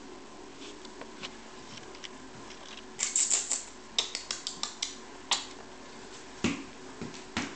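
Kittens' claws clicking and scrabbling on a wooden floor as they play: a quick run of sharp clicks starting about three seconds in, then a couple of duller thumps near the end.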